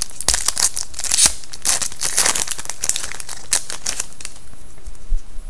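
Foil trading-card pack wrapper crinkling and tearing as a pack is opened: a run of crackles that dies down about four seconds in.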